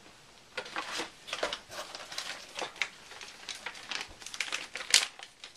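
Packaging rustling and crinkling in quick, irregular crackles as items are handled out of a box, with one sharper crackle near the end.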